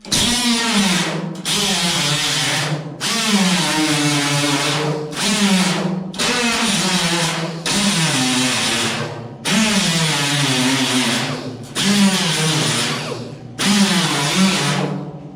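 Handheld power grinder trimming the edges of a steel car panel in about nine short passes. Each pass is a loud whine that sags in pitch as the disc bites into the metal and rises again as it frees up.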